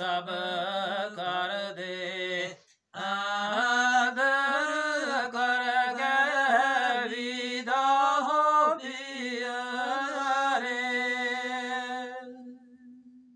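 A man's unaccompanied solo voice chanting a qissa, a sung narrative poem in Gojri, in a slow, drawn-out melody of long, wavering held notes. He breaks off for a breath about two and a half seconds in, and the last note trails away near the end.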